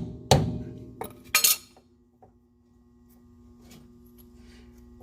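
Metal hand tools clinking and clanking against steel steering parts: about four sharp clanks with a brief ring in the first second and a half, the loudest about a third of a second in, then faint handling sounds.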